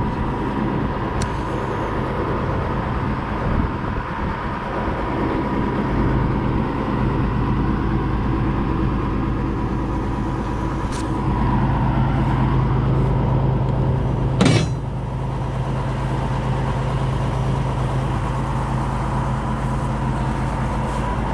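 Crane truck's diesel engine running steadily at idle, with a thin steady whine over it. A single sharp metallic knock about fourteen seconds in.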